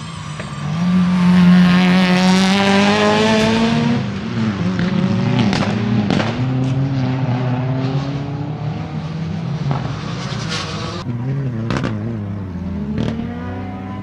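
Turbocharged flat-four boxer engine of a Subaru Impreza WRX STI rally car at full throttle, loudest about one to four seconds in, its pitch rising and dropping through gear changes. Several short sharp cracks break in over the second half.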